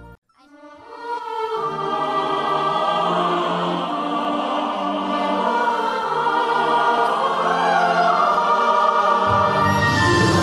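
Music with sustained choir-like singing over held chords. It cuts out briefly at the start, then swells back in, and a deeper bass layer comes in near the end.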